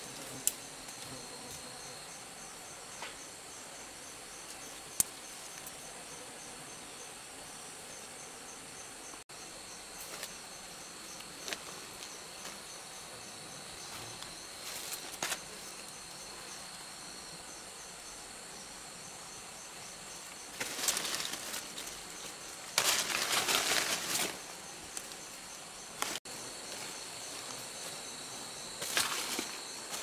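Insects droning steadily in a high, pulsing chorus. A few sharp clicks and two short bursts of rustling, scraping handling noise come about two-thirds of the way through, the second lasting over a second and the loudest sound.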